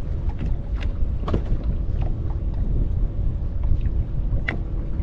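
Wind buffeting the microphone and small waves slapping against the hull of a bass boat, with scattered light clicks and taps.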